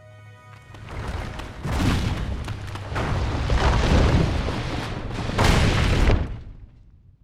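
Cave collapsing: a loud rumble of falling rock and crashing stone that swells in about three surges, then dies away near the end.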